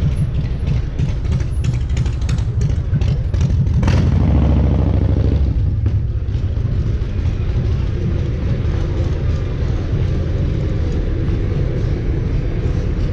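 A car driving, with a steady low engine and road rumble. There is a run of quick clicks in the first few seconds, and about four seconds in the engine note rises briefly as the car accelerates.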